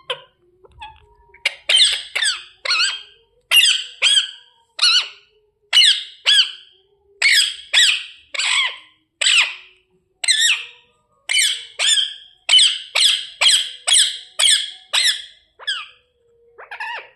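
Indian ringneck parrot screeching in a long run of loud, shrill calls, about two a second, each a quick falling squawk, with a short pause near the end.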